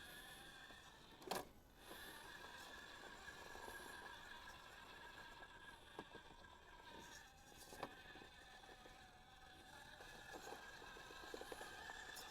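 Faint, steady whine of an RC crawler's electric motor as the truck crawls slowly, with a sharp knock about a second in and another near eight seconds.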